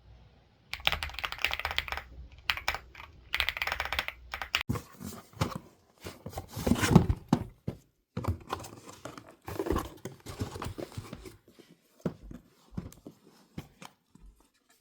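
Typing on a computer keyboard: a quick run of key clicks for about four and a half seconds. Then it changes to irregular rustling and knocking handling noises, the loudest about seven seconds in.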